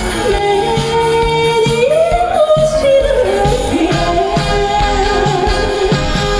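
A woman singing a trot song over a backing track with a steady beat. She holds long notes that climb about two seconds in and come back down about a second later.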